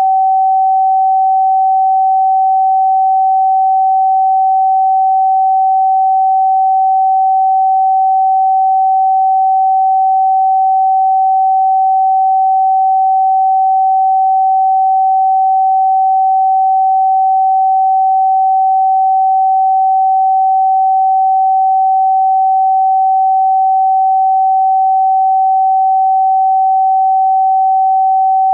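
Pure sine-wave tone held steady at one pitch, about 764 Hz: the note G (Sol) of a scale tuned to A = 432 Hz.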